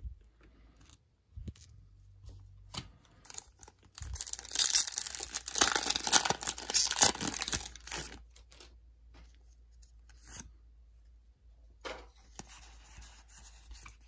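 Foil wrapper of a Pokémon Crown Zenith booster pack torn open and crinkled, loud for about four seconds starting about four seconds in. Softer rustling and clicks follow near the end as the cards are slid out of the pack.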